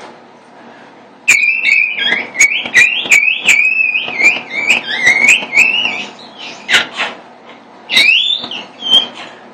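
Whistle-register vocal exercise: a run of short, high, squeaky voice notes, about two a second, each sliding upward, each set off with a cough-like catch. Then come two sharp cough-like bursts and one more rising whistle note near the end. The sound is strained and thin, which the singer puts down to the muscle not yet working well.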